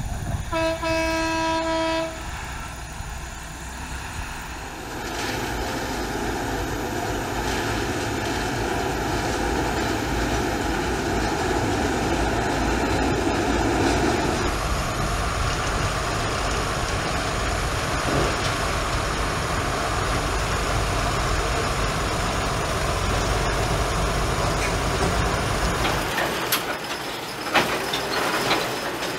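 A locomotive sounds its horn once, for about a second and a half, then runs on with a steady engine rumble and the noise of its wheels on the rails. Near the end come a few sharp clicks and knocks.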